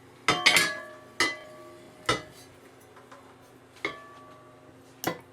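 Sharp metallic clinks from a breaker bar and deep socket working against the metal swivel pedestal as its centre bolt is torqued down, about six knocks at uneven intervals, each ringing briefly.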